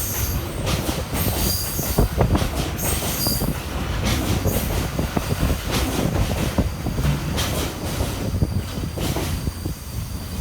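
Freight train wagons rolling past on the Kinuura Rinkai Railway: a steady rumble with repeated clatter from the wheels over rail joints. High wheel squeals come in the first few seconds and again later, and the sound eases slightly near the end.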